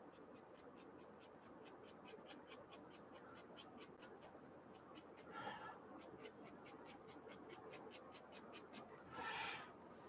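Faint, quick scratching of a bristle brush dabbed against canvas with acrylic paint, about four strokes a second, with two slightly louder rustles about five and nine seconds in.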